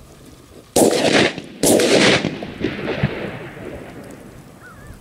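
Shotgun fire from a duck hunt: two loud blasts about a second apart, each followed by a long rolling echo that fades over a few seconds.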